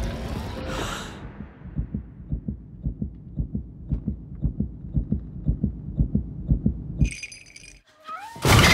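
Trailer sound design: a low, heartbeat-like thumping pulse that gradually quickens. Near the end comes a brief high ringing tone, then a sudden loud hit.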